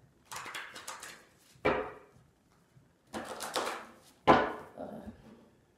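A deck of tarot cards being riffle-shuffled twice, each riffle a quick rattling flutter of cards, and each followed by a sharp knock. The second knock, about four seconds in, is the loudest.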